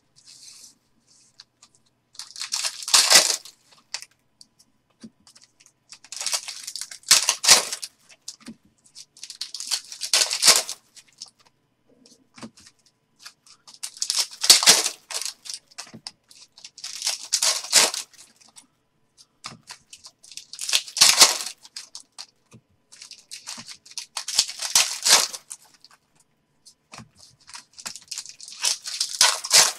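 Trading-card pack wrappers being ripped open and crinkled, about eight separate rips every few seconds.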